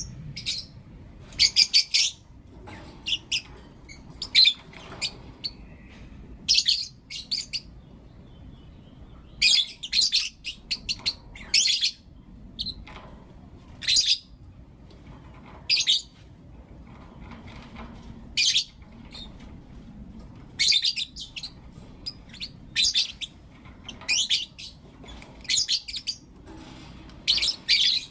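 Lovebirds chirping and calling: short, shrill, high-pitched bursts repeated every second or two, some in quick runs of two or three.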